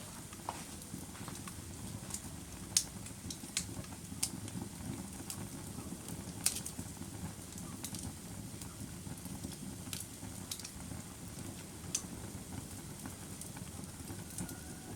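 Wood fire burning in a fireplace: a steady low rumble of flame with sharp, irregular crackles and pops, the loudest about three and six and a half seconds in.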